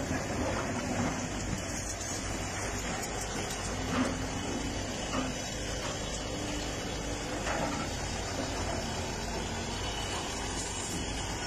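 Heavy diesel machinery running steadily, a constant rumble mixed with hiss, with a few faint knocks.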